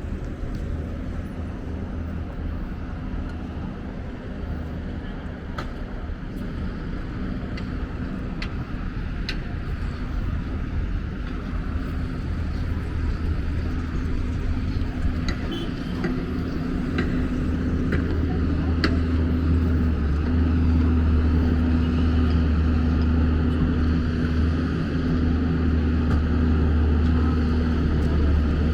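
Street traffic: a motor vehicle's engine running steadily close by, its low hum growing louder over the second half, with a few sharp clicks scattered through the middle.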